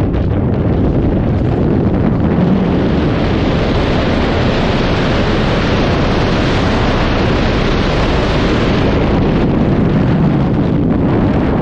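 Loud, steady rush of air buffeting the camera microphone during a skydive freefall at about 300 km/h.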